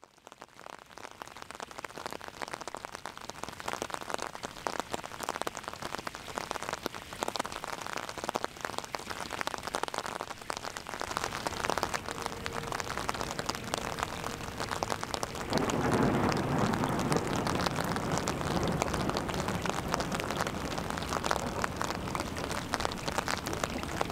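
Rain drumming on an umbrella, a dense patter of drops that fades in at the start and grows louder and fuller about two-thirds of the way through.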